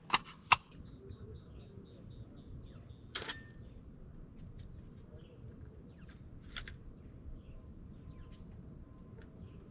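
Two sharp clicks in the first half-second as a Mamiya RZ67 Pro II's folding waist-level finder hood is pressed shut, then another click about three seconds in. Faint bird chirps over steady low background noise.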